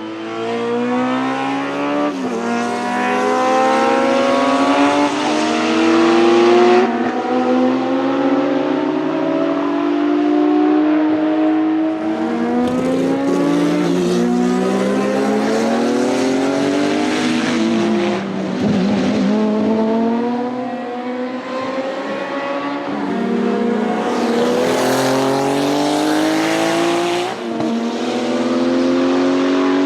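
Porsche 935 K3 Kremer's twin-turbo 3.2-litre flat-six race engine under hard acceleration, its pitch climbing and then dropping sharply at each upshift, over and over.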